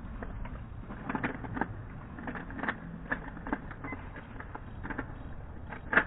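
3x3 speedcube being turned fast during a timed solve: bursts of quick plastic clicking and clattering as the layers snap round, with a sharper knock near the end, over a steady hall hum.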